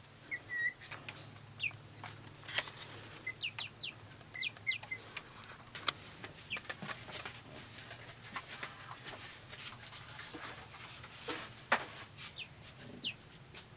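Young silkie chickens peeping softly, with scattered short, high peeps that drop quickly in pitch. Light clicks and knocks come in between.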